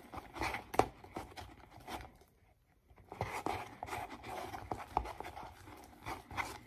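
Cloudy slime of Elmer's glue, shaving cream and contact solution being stirred in a plastic bowl as more contact solution is worked into the still-sticky mix: irregular squishing and crackling, with a pause of about a second a little after 2 seconds in.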